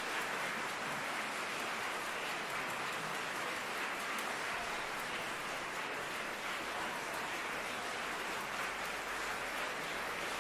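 Audience applauding: a dense, steady spatter of clapping with no music.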